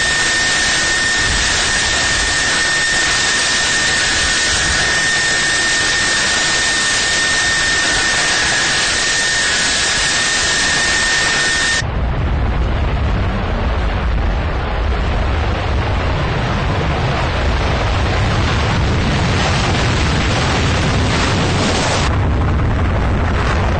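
Jet engine noise from a MiG-31 jet fighter. For about twelve seconds it is a steady hiss with a high whine held through it. After an abrupt change it becomes a deep, steady low noise as the jet takes off.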